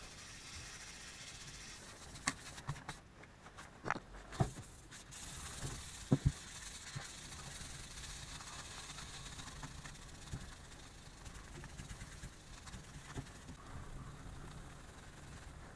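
Fine-grit sandpaper rubbed by hand back and forth over a steel axe head, a faint steady scratchy hiss. A few sharp knocks and clicks come between about two and six seconds in.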